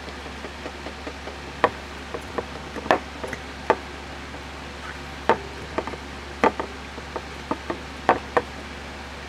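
Irregular sharp clicks and knocks, about fifteen spread unevenly, as of brake caliper parts and tools being handled and set down, over a steady low hum.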